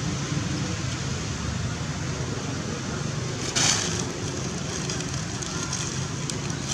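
Steady outdoor background hiss with a low engine-like hum under it. About halfway through there is a brief burst of rustling noise.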